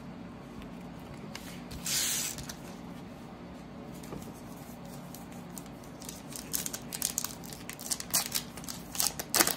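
Trading-card pack wrapper torn open, a brief rip about two seconds in, then crinkling and crackling as the wrapper and cards are handled from about six seconds on.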